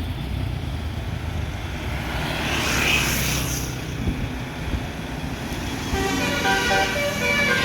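Bus engine and traffic rumble, a short hiss about three seconds in, then from about six seconds a Basuri multi-tone 'telolet' bus horn playing a melody of stepped notes.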